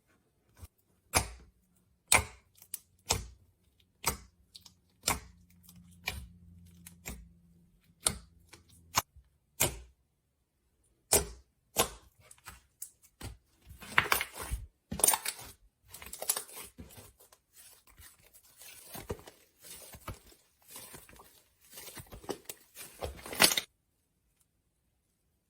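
Slime being pressed and squeezed by hand, giving sharp pops about once a second at first, then denser crackling and popping for the second half.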